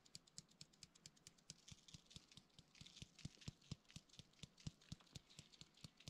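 Faint quick clicks and taps of a spice jar being shaken to season food, a few a second, coming thicker in the second half.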